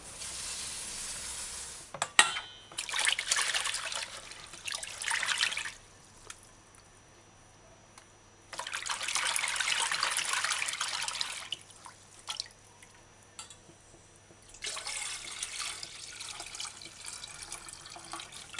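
Rice being rinsed by hand in a bowl of water: four separate bursts of water swishing and pouring, each a few seconds long, with quieter gaps between and a single click about two seconds in. Near the end, rinse water is poured off the rice into a stainless steel bowl.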